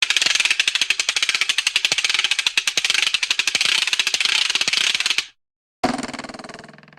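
Cartoon sound effects: a fast run of sharp clicks lasting about five seconds, then a twanging boing that rings on one pitch and fades away.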